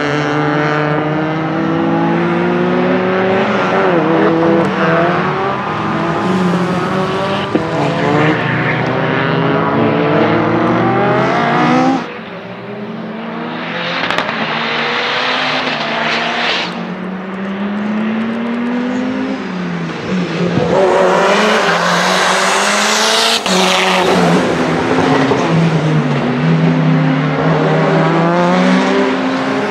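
Lancia Delta HF Integrale EVO Proto's turbocharged 2.0-litre four-cylinder engine driven hard on track, revs climbing and dropping again and again through quick sequential-gearbox shifts. About two-thirds of the way through comes a stretch of rougher noise with tyre squeal.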